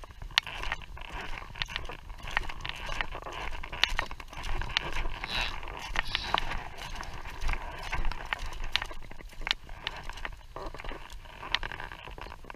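Wind buffeting the action camera's microphone, with many irregular sharp clicks and rustles as a camera on a small tripod is handled and lifted off the ice.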